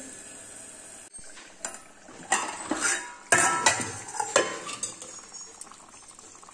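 Steel cookware clinking: a steel plate lid and utensils knocking against a kadhai as it is uncovered. There are several sharp clinks between about two and four and a half seconds in, and softer clatter after them.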